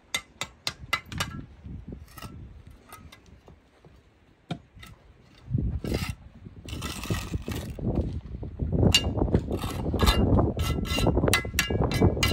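Clicks and knocks of bricklaying work: a quick run of sharp taps in the first second and a half, scattered taps after that, then a steadier low rumble with clatter from about five and a half seconds in.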